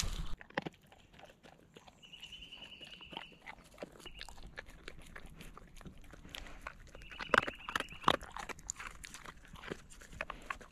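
Dog crunching dry kibble, a run of irregular crisp crunches, with the two loudest about seven and eight seconds in.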